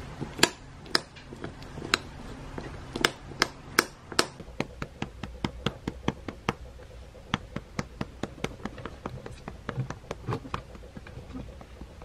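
Quick taps, a few louder ones in the first four seconds, then a run of lighter ones at about three or four a second that stops near the end. The later run is a hand patting a long-haired cat's rump.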